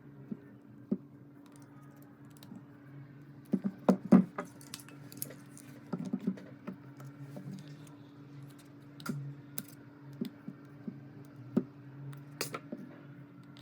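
Irregular small clicks and taps of hand tools working on a smartphone being taken apart, with the loudest cluster about four seconds in, over a steady low hum.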